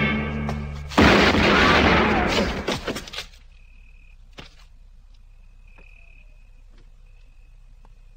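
A loud bang about a second in that dies away over about two seconds, followed by a quiet night ambience in which a cricket chirps in short trills, with a few faint clicks.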